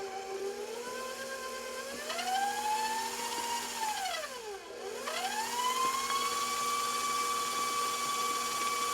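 KitchenAid stand mixer motor whining as it beats eggs into cake batter. The pitch rises over the first few seconds, drops sharply about halfway through and climbs straight back up, then holds steady.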